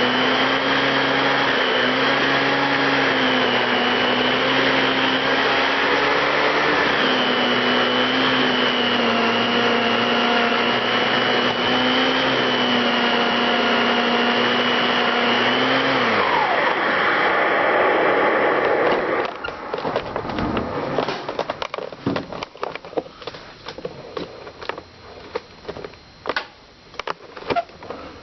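Electrolux central vacuum with its power nozzle running at a steady motor hum. About sixteen seconds in it is switched off and winds down with a falling pitch, and scattered clicks and knocks follow.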